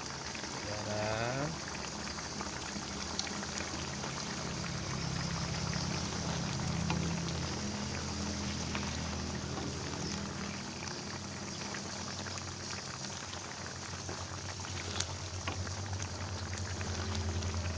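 Coconut-milk fish curry bubbling at a simmer in the pot, a steady run of small pops and ticks over a low steady hum. A brief rising tone sounds about a second in.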